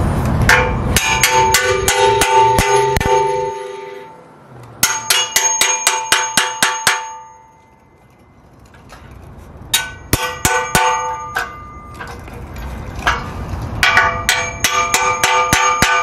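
Hammer blows on the connecting pins of an aluminium F34 truss seated on a steel ground-support base, each strike ringing metallically. The blows come in four quick bursts of several strikes a second, with short pauses between.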